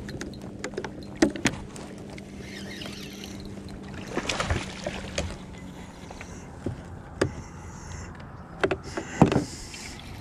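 Knocks and clatter of a fishing rod and gear being handled on a plastic kayak, the loudest about a second in, around the middle and near the end. A low steady hum runs under the first half and fades out.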